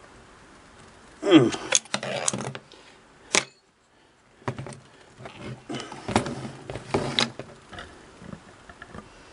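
A wrench and small metal parts clinking and scraping against a sewing machine in two bursts of handling, with sharp clicks in between.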